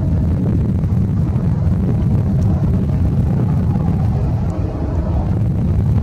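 Steady low rumble of a twin-engine jet airliner's engines as it climbs away after takeoff.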